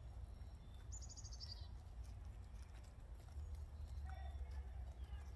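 Outdoor backyard ambience under a low steady rumble. A high, rapid songbird trill sounds about a second in, and one of the hens gives a brief soft call just past four seconds.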